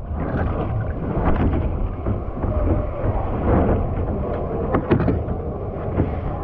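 Water sloshing against a kayak hull as a paddler climbs out of the cockpit onto the pool edge, with the boat bumped and knocked a few times about five seconds in, over a low rumble.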